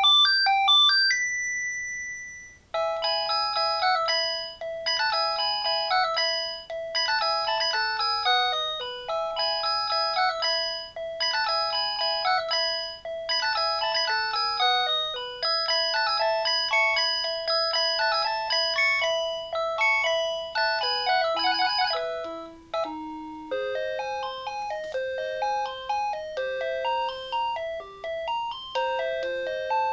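Panasonic KX-TG5439 cordless phone playing its built-in ringtones one after another: electronic polyphonic melodies, each short phrase repeating. A steady beep sounds about two seconds in, and about three quarters of the way through the tune switches to a different, lower one.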